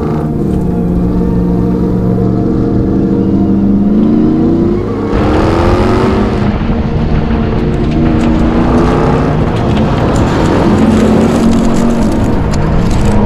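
Ram 1500 TRX's 6.2-liter supercharged HEMI V8 running hard and revving, its pitch climbing about four to six seconds in. From about five seconds in, the tyres churn loudly through dirt and gravel.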